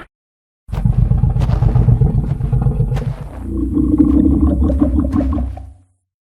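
Designed Tarbosaurus vocal sound effect: a deep, rough rumbling growl about five seconds long, starting about a second in. It turns into a steadier, higher moan in its second half, with a few sharp clicks early on.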